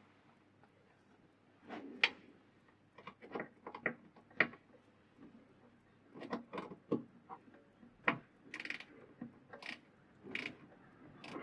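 A spanner tightening the tailstock-end mounting bolt that holds a mini lathe down to its steel bed: a run of irregular short metallic clicks and ticks.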